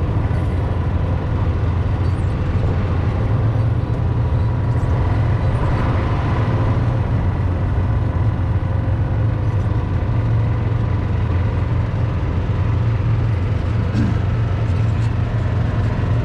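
A small vehicle driving across grass at a steady pace, its motor a steady low rumble with a faint high whine.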